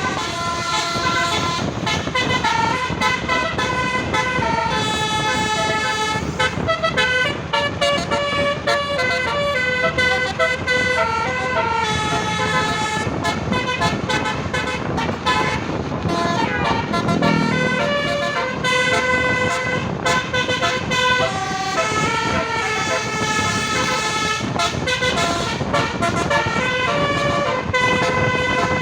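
Bus 'basuri' telolet horn, a 12-note set of roof-mounted trumpet horns, playing a fast melody of stepping notes over traffic noise.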